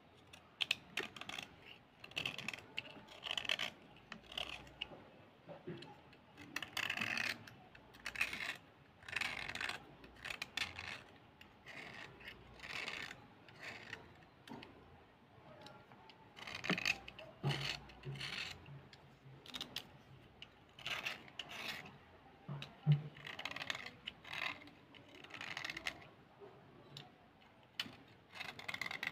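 Metal blade scraping along a slate pencil in short, repeated strokes, shaving off its stained outer surface, with brief pauses between runs of strokes.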